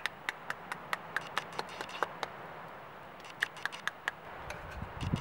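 A knife striking the back of a halved pomegranate, held cut side down, to knock its seeds out: sharp, regular taps about four a second, with a short pause about halfway.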